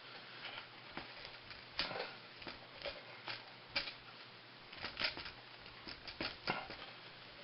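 Irregular small clicks, taps and scrapes of hands handling a motorcycle-style recoil pull starter and its cord during reassembly.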